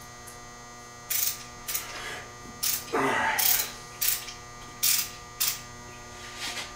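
A steady electrical hum throughout. About a second in, a series of roughly eight short hissing bursts begins, with a longer one near the middle.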